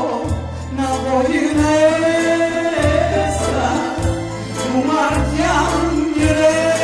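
A woman singing a Romani folk song into a stage microphone in long, gliding held notes, over a low bass accompaniment that changes note about once a second.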